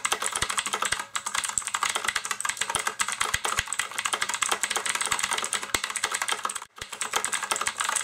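Fast typing on a UtechSmart Mercury mechanical keyboard with blue switches: a dense stream of sharp, clicky keystrokes with one brief pause near the end.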